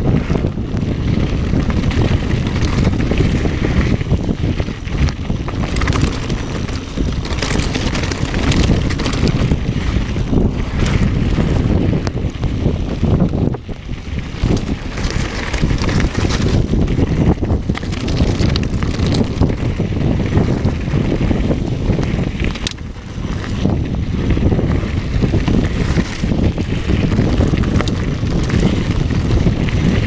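Wind buffeting the microphone of an action camera on a mountain bike descending fast, over a steady rumble of tyres on loose gravel and the bike rattling and knocking over rocks.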